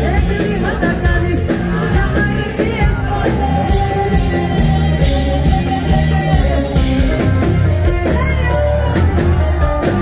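Live Greek pop band playing, with electric guitar, violin and percussion, over a steady beat, with singing.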